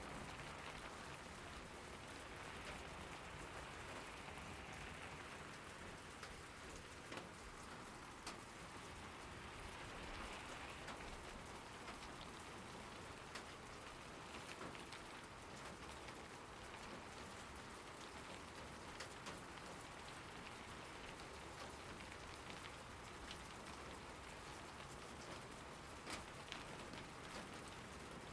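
Steady rain falling, an even hiss with scattered louder drop ticks.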